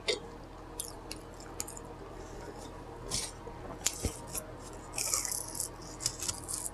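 Close-miked chewing of food, with irregular wet mouth clicks and smacks and a short louder hissy stretch about five seconds in.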